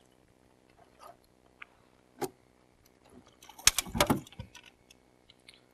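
A landing net and a hooked pike knocking and rattling against the side of a boat as the fish is netted: one sharp click about two seconds in, then a short burst of knocks and clatter just before four seconds in.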